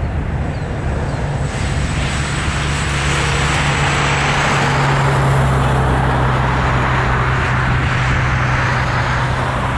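Jet engine noise from a Boeing 737-700's two CFM56-7B turbofans as the airliner climbs away after takeoff: a steady, continuous rush with a low hum underneath.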